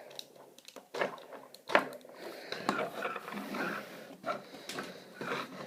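Hard plastic parts of a Leader Class Bumblebee Transformers toy being handled and moved into place: sharp clicks and knocks a few times over low rustling handling noise.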